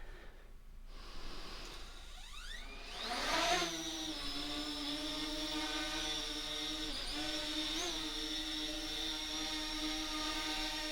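Parrot Anafi quadcopter's motors spinning up with a rising whine as it lifts off, then settling into a steady propeller hum as it hovers, with brief pitch changes near the end as it corrects its position.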